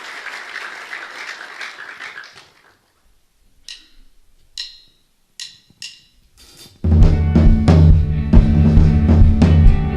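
Applause dies away, then a few sharp clicks of a drummer's sticks count in. About seven seconds in, a live band with drum kit starts playing at full volume.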